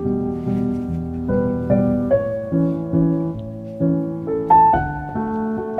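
Background piano music: a gentle melody of sustained notes over soft chords.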